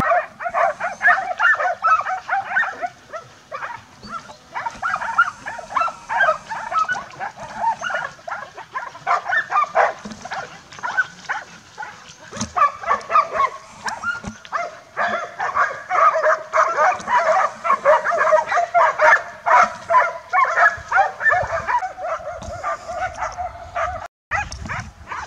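Hunting dogs on a wild boar hunt barking rapidly and without letup, short barks tumbling over one another, with a brief break near the end.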